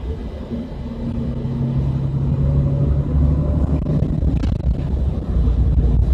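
Bus engine and road rumble heard from inside the bus, a low drone with a humming engine note that grows louder and rises a little in pitch over the first few seconds as the bus gathers speed.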